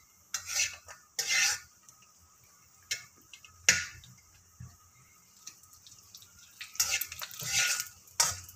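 Flat metal spatula scraping and stirring cashews in a thin layer of ghee in an aluminium kadai: a few scrapes near the start, a sharp clink of the spatula on the pan a little before the middle, then a quiet stretch and a quick run of scrapes near the end.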